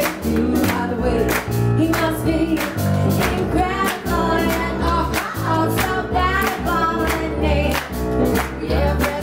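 Live band music with a steady drum beat: a woman singing over electric guitar, keyboard and bass.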